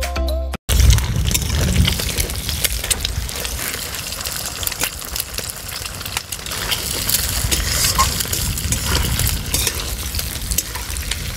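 Background music cuts off under a second in, then eggs fry in hot mustard oil in a kadai: a steady sizzle with scattered clicks and scrapes of a spatula stirring them.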